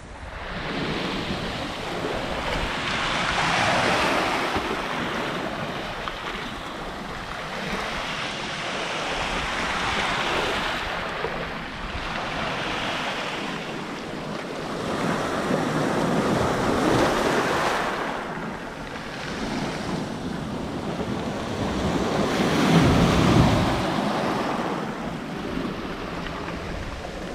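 Sea waves washing onto a pebble shore, the surf swelling and falling back about every six seconds, with wind buffeting the microphone.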